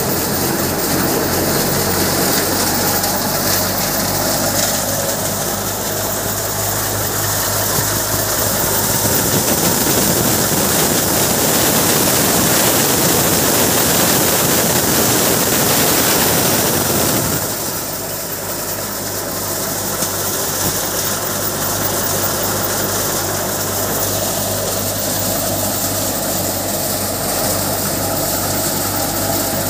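A Kamdhenu thresher runs at speed while threshing. A steady low engine hum sits under the noisy rush of its drum and blower. The rush grows louder and rougher for several seconds midway, then settles back.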